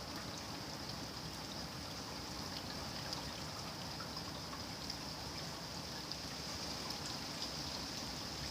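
Steady rain falling, a continuous hiss of water with scattered individual drops ticking through it.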